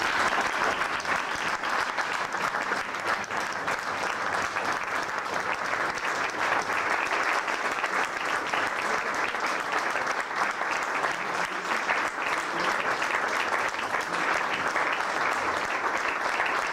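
A room of dinner guests applauding, sustained clapping that holds steady without a break.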